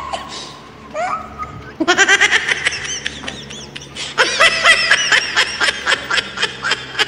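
A man laughing in two bouts of rapid, repeated bursts, the first about two seconds in and the second from about four seconds in.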